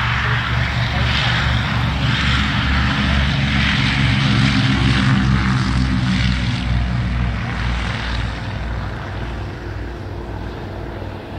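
Avro Anson's twin Armstrong Siddeley Cheetah radial engines at takeoff power, with a steady throb as the aircraft runs along the grass and lifts off. The sound peaks as it passes about five seconds in and fades as it climbs away.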